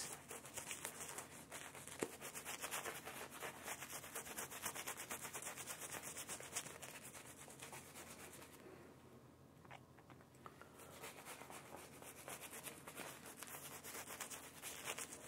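Omega synthetic-fibre shaving brush scrubbing lather onto a stubbled face: a faint, quick, bristly rubbing in rapid strokes, which eases off for a couple of seconds past the middle and then starts again.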